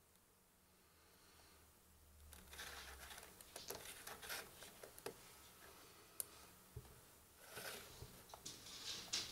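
Faint handling noise: soft rustling with scattered light clicks, the loudest rustle near the end.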